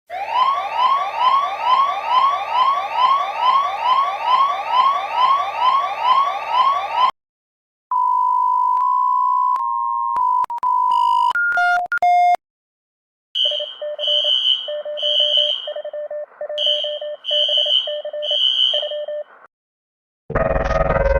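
A sequence of emergency alert alarm tones. First comes a fast repeating rising sweep, about two and a half a second, for several seconds. After a short break there is a steady mid-pitched tone and a quick run of shifting beeps. Then come sharp high beeps in groups with short pauses, and near the end a synthesizer music bed comes in.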